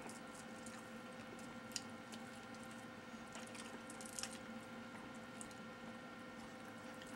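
Quiet room tone with a steady electrical hum, broken by a few soft clicks and taps of people eating at a table. The loudest tap comes a little under two seconds in.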